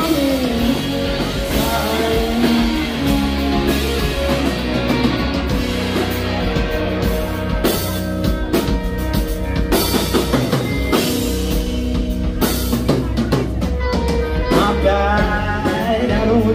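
Live rock band playing loudly: two electric guitars, electric bass and a drum kit.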